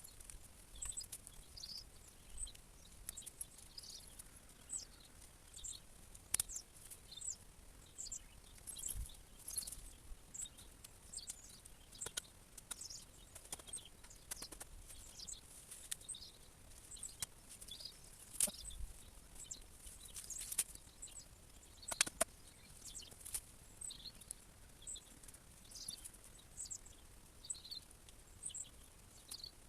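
Wild birds chirping and singing, many short high calls throughout, with a few sharp clicks scattered among them.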